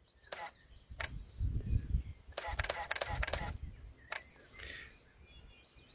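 Canon EOS 5D Mark II digital SLR being worked by hand: a few sharp clicks from its buttons and shutter, with a quick cluster of clicks about halfway through.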